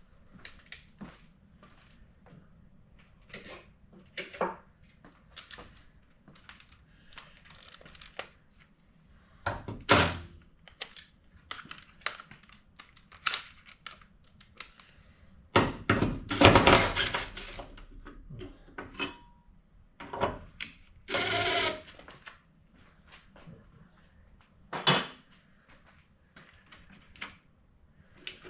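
Hand tools and car parts being handled while a wiring harness is taken out of a car's front end: scattered clicks and knocks, louder clunks about ten seconds in and a cluster of them a few seconds later, and a scraping sound lasting about a second past the two-thirds mark.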